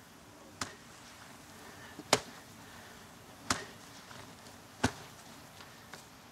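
A shovel striking into dirt in four sharp strokes, about one every second and a half, the second the loudest.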